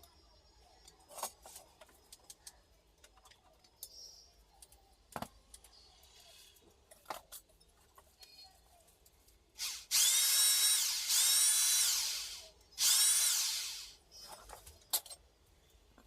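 An electric drill runs in three short bursts, its whine rising as it speeds up and falling as it winds down each time. Scattered light clicks of tool handling come before the bursts.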